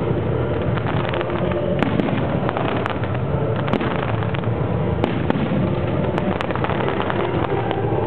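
Aerial fireworks shells bursting in a dense, unbroken run of bangs and sharp crackles.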